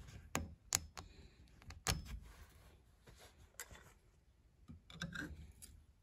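A few faint, scattered clicks and taps of metal parts being handled: the steering column's lock plate being wiggled loose on the steering shaft.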